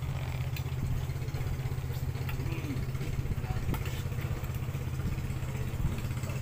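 A small engine running steadily at low speed, a constant low rumble of fast even pulses, with a few faint clicks over it.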